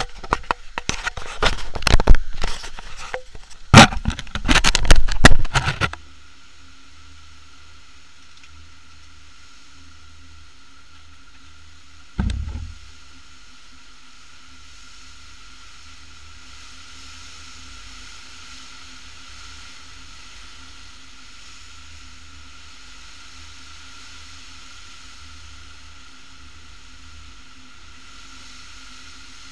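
Loud, irregular knocking and rumbling of the camera being handled and set down for the first six seconds, then a steady faint hiss with a single dull thump about twelve seconds in.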